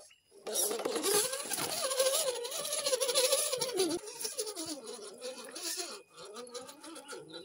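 Carson RC rock crawler's electric motor and gearbox whining, the pitch wavering up and down with the throttle, with clicks and crunches from the tyres on stone. The sound is strongest for the first four seconds, then breaks off and comes back more quietly.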